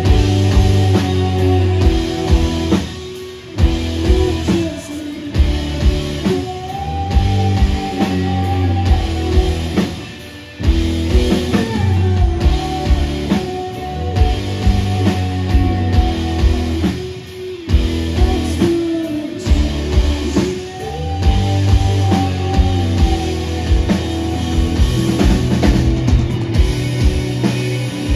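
Live indie rock band playing: electric guitars, bass and drum kit, with a sung melody line heard at times.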